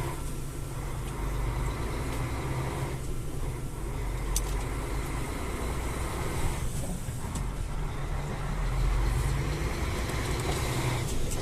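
Truck's diesel engine running steadily as the tractor-trailer moves off, a low drone that grows a little louder near the end.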